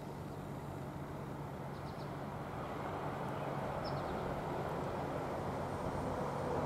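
Diesel locomotives of an approaching freight train, a steady low rumble and engine hum that slowly grows louder.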